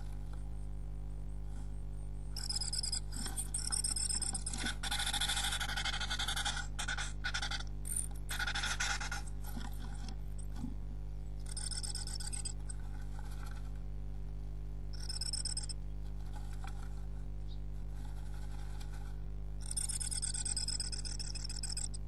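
Scratching and rustling inside a tit nest box as the bird works its nesting material, in bouts: a long spell starting about two seconds in, then shorter bursts later. Under it runs a steady low hum.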